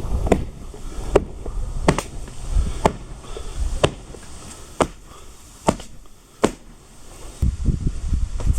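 A steady series of sharp knocks, about one a second, over a low rumble that fades in the middle and returns near the end.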